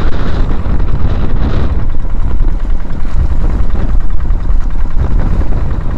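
Loud, steady wind noise on the microphone over waves splashing and washing against a small wooden outrigger fishing boat in a rough, choppy sea.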